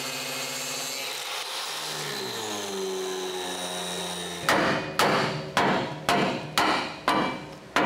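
An angle grinder's whine that slows and falls in pitch as it winds down, followed about halfway through by hammer blows, roughly two a second, on a chisel driving the ground-down factory rivets out of the truck's frame. The hammer strikes are the loudest sound.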